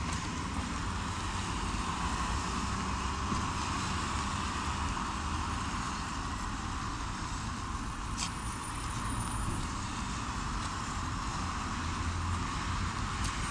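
Steady traffic noise from cars passing on a wet road, with a short click about eight seconds in.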